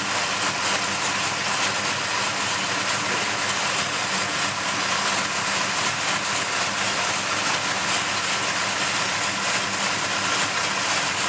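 Dodge Dart's Mopar 360 V8, bored out to 408 cubic inches, idling steadily.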